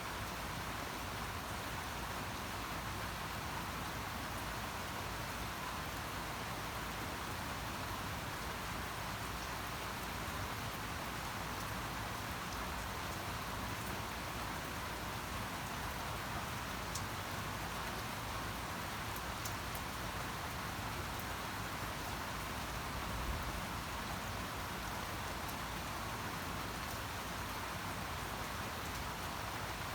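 Steady rain falling on surfaces, an even hiss with scattered fine drop ticks, and one brief low bump about three quarters of the way through.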